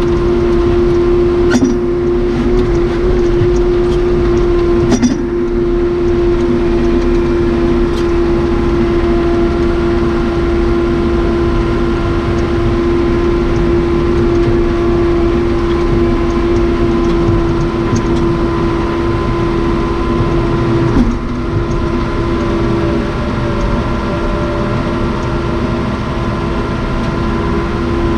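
Cummins 4BT four-cylinder diesel of a 1993 Case 580 Super K backhoe running steadily, with a strong steady droning tone and a few short sharp clicks or knocks.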